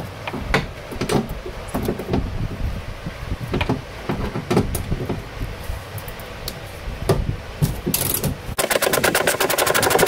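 Knocks and scrapes of a socket ratchet and hands working inside a car's sheet-metal door cavity, then a fast, even run of ratchet clicks near the end as the ratchet is worked on a 10 mm bolt.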